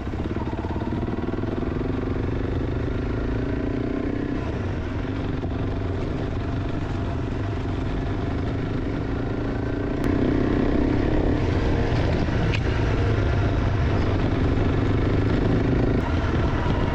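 Honda CRF300 Rally single-cylinder engine running under way on a dirt track, through its aftermarket Moto X exhaust. It is steady at first and gets louder about ten seconds in as the rider opens the throttle.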